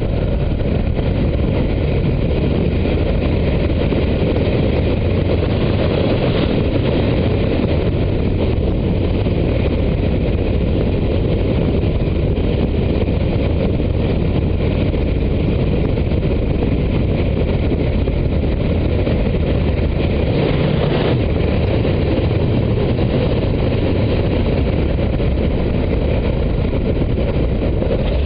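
Loud, steady wind roar buffeting a GoPro camera's microphone as a wingsuit flier glides at speed, a dense rumbling rush with no break.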